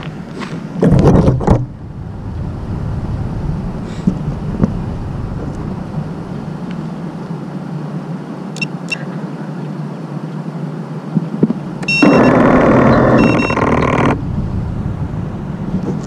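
About twelve seconds in, the Armattan Rooster racing quad's brushless motors spin up for about two seconds with a rough, pulsing whine. One motor has gone bad: gravel got into it and loosened its stator. Before that there is a steady noise bed and a short loud knock about a second in.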